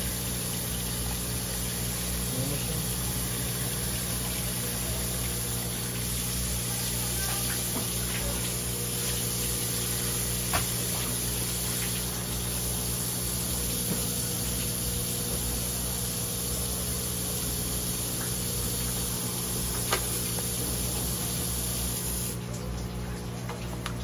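A thin stream of running water pours steadily onto a cut-open olive flounder on a plastic cutting board, rinsing the blood out as the fish is bled. A steady low machine hum runs underneath, with a couple of sharp clicks, and the water cuts off near the end.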